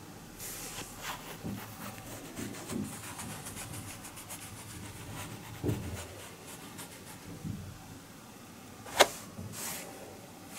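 Cloth rustling and rubbing against a tatami mat in scattered soft strokes, with one sharp click about nine seconds in.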